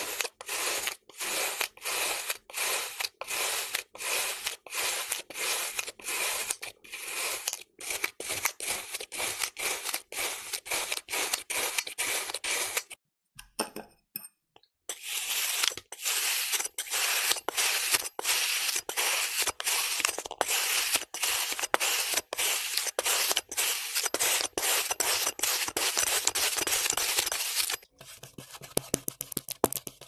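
Blades slicing through packed kinetic sand in quick repeated strokes, a crunchy scraping about twice a second. There is a short break about halfway through, and the sound turns quieter and finer near the end.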